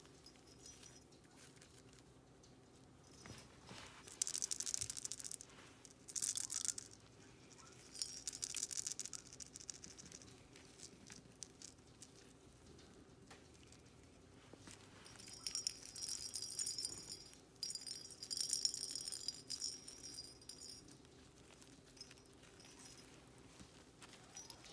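Small bell inside a plastic puppy toy ball jingling in five short bursts as the ball is batted and rolled about, with a faint steady hum underneath.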